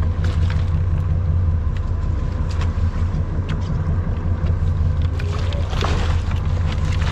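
Boat engine running steadily with a low hum, and water splashing against the hull about six seconds in as a lingcod thrashes in a landing net.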